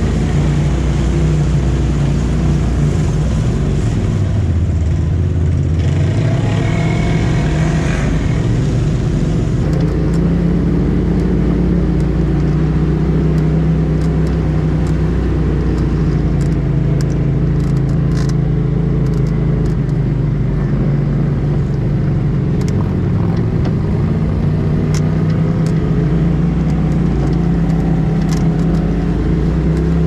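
Side-by-side UTV engine running steadily while driving slowly over a creek trail, heard from inside the cab, its pitch drifting up and down a little with the throttle.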